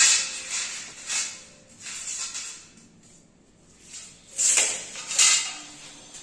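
Aluminium door frame sections and a tape measure being handled on a tiled floor: a series of short metallic scraping and sliding noises, the two loudest near the end.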